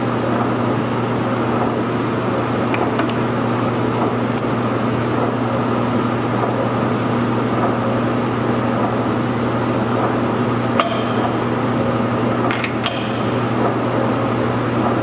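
Steady machinery hum, with a few light metallic clicks and clinks as the tailstock of a Stanko engine lathe is worked by hand, twice in quick pairs near the end.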